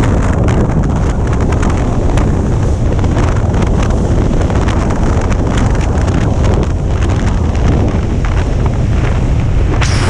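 Wind buffeting the microphone on a moving boat: a loud, steady low rumble broken by many short crackling gusts, over the churn of the boat and water.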